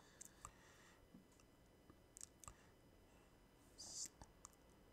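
Near silence, with a few faint mouth clicks and one short breathy hiss about four seconds in, picked up close on a headset microphone.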